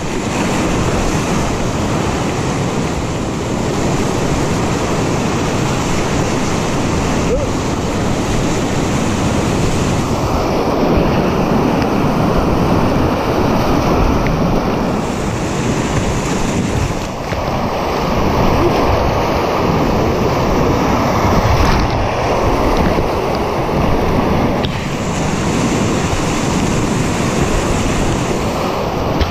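Whitewater rapids rushing loudly and steadily around a kayak, with water washing over the bow and against the camera.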